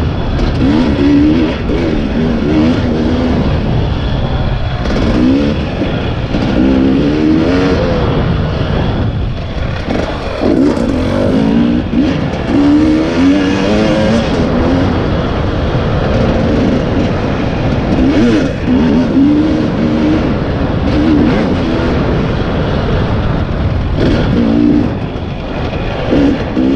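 2020 KTM 300 EXC's two-stroke single-cylinder engine revving up and falling back over and over as the dirt bike is ridden along single track, every second or two, with a steady rush of noise underneath.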